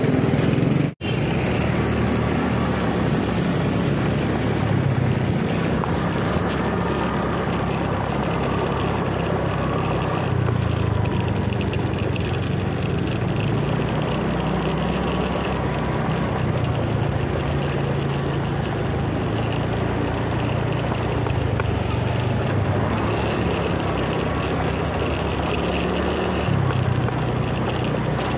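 Small motorcycle engine running at a steady riding speed, a continuous low drone mixed with wind noise on the microphone. The sound cuts out briefly about a second in.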